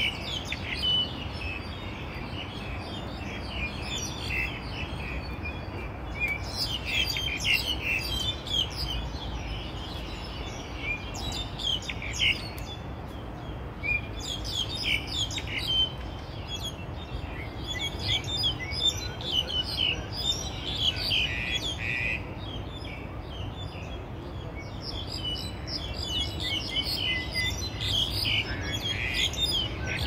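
Songbirds chirping and twittering in trees: many short, high calls in quick bursts, over a steady low rumble.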